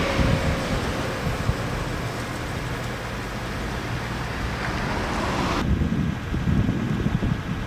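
Wind buffeting the microphone over the fading rumble of a passing electric train. About five and a half seconds in, the sound cuts off abruptly to a quieter wind rumble.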